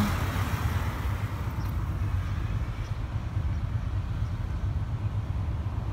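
Street traffic: a vehicle passes and fades away over the first couple of seconds, over an uneven low rumble.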